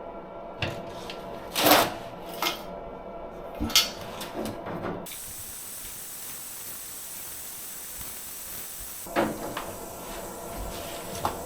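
Several sharp knocks and clunks, the loudest nearly two seconds in and another about nine seconds in, over a steady mechanical hum. A faint high hiss joins about five seconds in.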